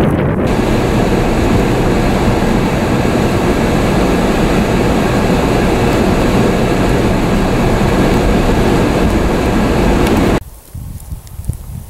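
Steady loud rushing of a vehicle driving on a highway through blowing snow, road and wind noise with a faint steady hum. It cuts off suddenly near the end, leaving a quiet rustle.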